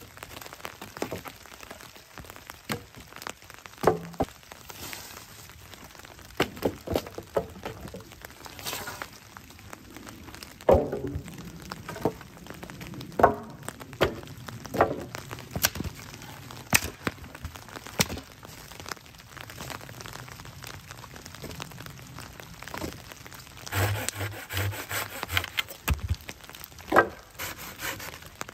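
Dead wooden branches cracking and knocking as firewood is handled and snapped, in irregular sharp cracks and thuds, with a busier run of them near the end.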